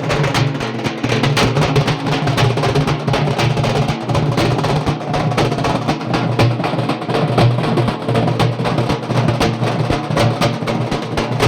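A group of halgi frame drums beaten in a fast, dense, unbroken rhythm, very loud.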